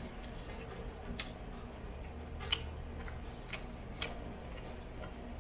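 A few light, irregular clicks of chopsticks tapping against a plate while eating, over a low steady room hum.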